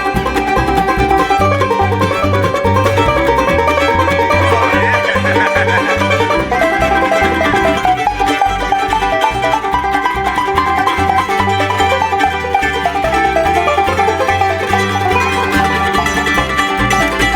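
Bluegrass string band playing an instrumental break with no singing: five-string banjo, mandolin, guitar and fiddle over a steady low rhythmic pulse.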